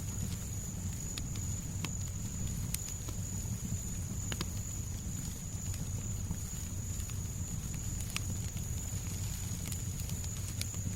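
Fireplace crackling: irregular sharp pops and snaps over a steady low rumble, with a constant thin high hiss of white noise underneath.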